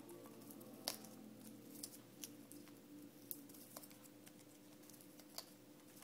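Blue-fronted amazon parrot chewing and nibbling at a ring-shaped toy with its beak: quiet, scattered sharp clicks at irregular intervals, about one a second.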